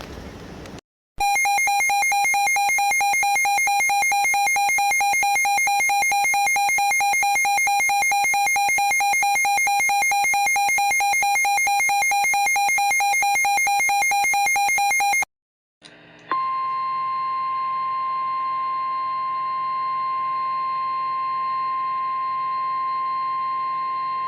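Emergency Alert System attention signal: a loud, harsh two-tone alarm lasting about fourteen seconds, stopping abruptly. After a second of silence comes the steady single-pitched National Weather Service alert tone, near 1 kHz.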